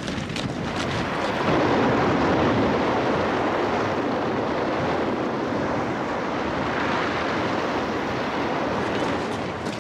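Rough sea breaking and churning white over rocks: a steady rushing wash of surf that swells up over the first second or two and eases near the end.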